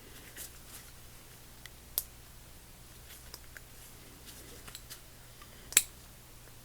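Small metal parts of a ratchet clicking and tapping as they are handled and pressed together during reassembly: a few light clicks, a sharper one about two seconds in and the loudest click near the end.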